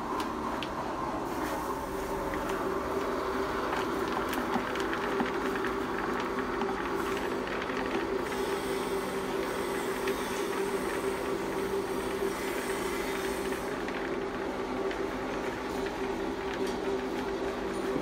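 Electric pellet machine running steadily: a constant machine hum and whine, with faint scratching as the ground corn, barley and oat mix is stirred in its feed hopper.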